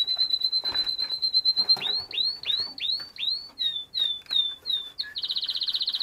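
A canary singing: a fast trill, then a run of rising-then-falling swooping notes about three a second, then shorter falling notes, and a second fast trill from about five seconds in.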